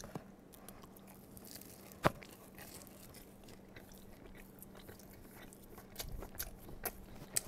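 A person chewing and biting cheesy bread close to a headset microphone: soft mouth noises with scattered sharp clicks, the loudest about two seconds in and a few more near the end.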